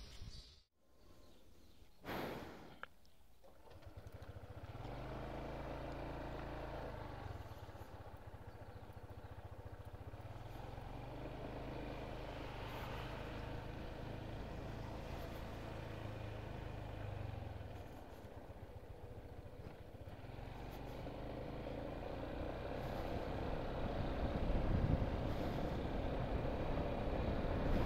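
Honda ADV150 scooter's single-cylinder engine idling steadily, then pulling away and riding; from about two-thirds of the way in, the engine and wind noise grow steadily louder.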